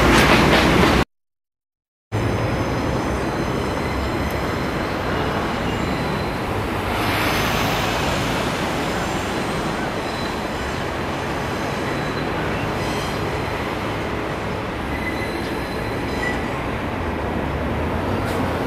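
Oil tank wagons rolling slowly over track and points, with faint, intermittent high wheel squeal over a steady rumble from the shunting diesel locomotive. The sound drops out completely for about a second near the start.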